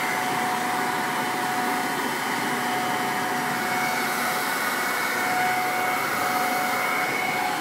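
Electric air blower running steadily with a constant whine, like the inflator used for a walk-in plastic ball.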